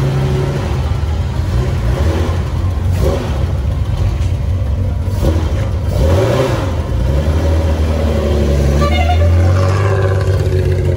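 Nissan Skyline 'Hakosuka' engine running at low revs as the car pulls away slowly, with a brief rise in revs about six seconds in and the engine note swelling louder around eight to nine seconds.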